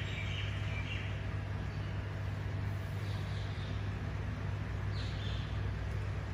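Steady low electrical hum from the microphone and sound system during a silent pause, with a few faint high-pitched sounds now and then.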